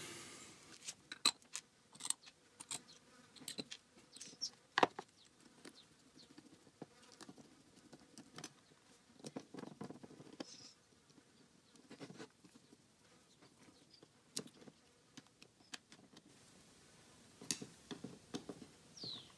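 Scattered light clicks and taps of small metal parts being handled: the float bowl being fitted back onto a quad bike's carburettor.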